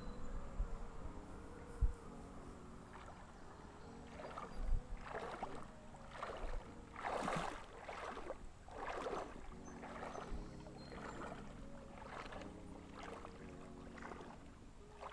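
Water sloshing and splashing about once a second, the sound of legs wading through a shallow creek, over soft background music with long held notes.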